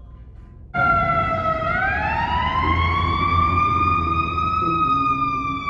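Ambulance siren in wail mode, starting abruptly about a second in: a slow rise in pitch over a few seconds, then a slow fall near the end, over low city traffic rumble.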